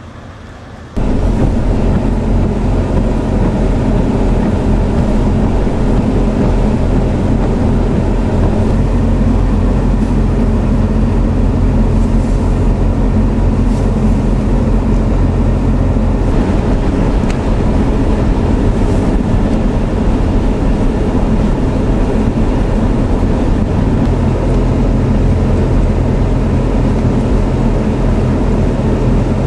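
Steady vehicle engine and road noise from a car driving, starting abruptly about a second in and holding steady with a constant low hum.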